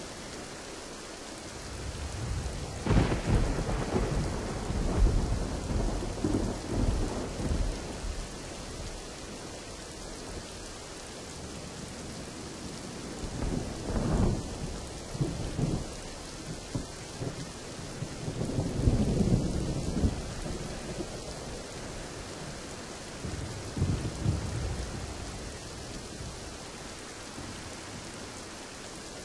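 Steady heavy rain hissing, with rolls of thunder rumbling over it: a long loud roll starting a few seconds in, then further rolls in the middle and toward the end.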